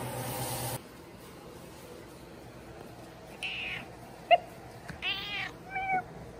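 Domestic tabby cat giving a few short meows and chirps in the second half, the sharpest about four seconds in. It follows a steady hiss and hum that cuts off abruptly under a second in.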